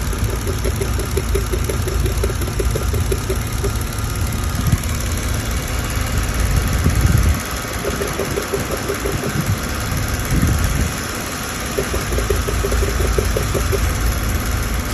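Mercedes-Benz W211 engine running at idle while it is checked for a misfire, a steady running note with stretches of rapid, uneven pulsing.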